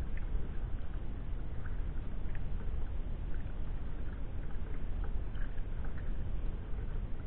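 Sea kayak paddling: light, scattered splashes and drips from the paddle in the water, under a steady rumble of wind on the microphone.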